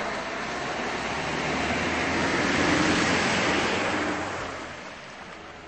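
A motor vehicle passing by: a rush of road and engine noise that swells to its loudest about three seconds in, then fades away.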